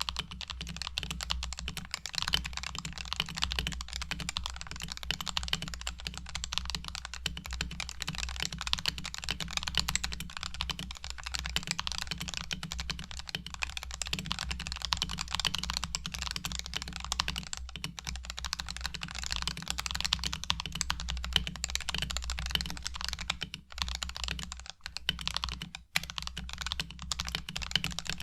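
Continuous fast typing on a Razer Huntsman TE keyboard with red linear optical switches, modded with lubed switches, lubed stabilizers and two layers of sound-dampening foam in the case, for a quieter, softer keystroke sound. The typing pauses briefly twice near the end.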